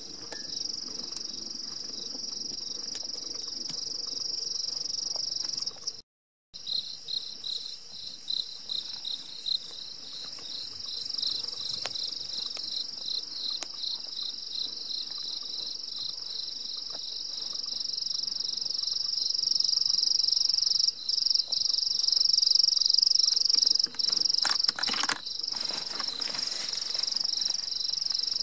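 Night insects trilling in a steady high-pitched chorus, pulsing about three or four times a second through much of it. A few soft knocks and rustles come near the end.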